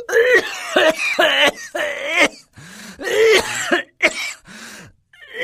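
A smoker's dry, hacking coughing fit: a string of short coughs with strained, throaty voice between them.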